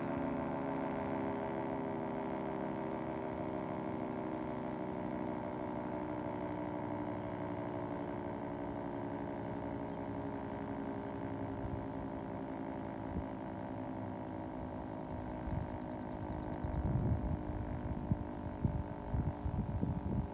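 Federal Signal 3T22 three-tone electromechanical siren sounding a sustained chord, its pitch and loudness sagging slowly. Irregular low thumps come in over the last few seconds.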